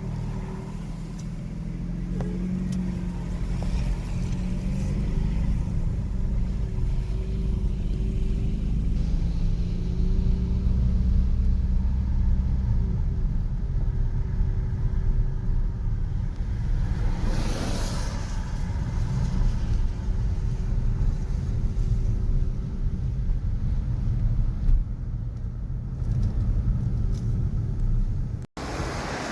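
City street traffic: a steady low rumble of car engines, with one vehicle swishing past about two-thirds of the way through. The sound drops out for an instant near the end.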